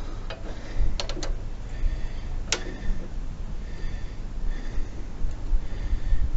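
A few sharp metallic clicks of a 17 mm spanner being worked on the brake-pedal pivot nut, over a steady low rumble.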